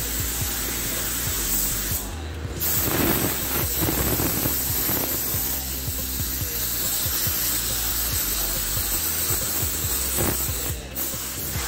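Compressed-air gravity-feed spray gun hissing steadily as paint is sprayed onto a bus body panel. The trigger is let off briefly about two seconds in and again near the end, where the hiss drops out.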